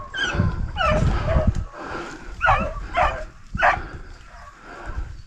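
Beagles baying as they run a rabbit's trail: about five short, yelping calls, three of them close together in the middle, over low rustling in the first second and a half.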